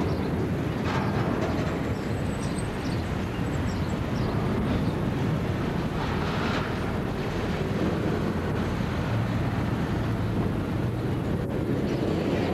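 Empty coal hopper wagons of a freight train rolling past on the rails, a steady rumble of wheels and wagons.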